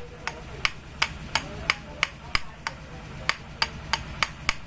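Light hammer taps on metal, about three a second, each with a short metallic ring, over a steady low hum.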